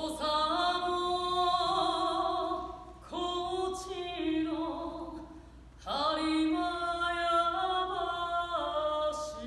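A woman singing solo and unaccompanied, in three long phrases of drawn-out notes that step from one pitch to the next, with short breaths between them.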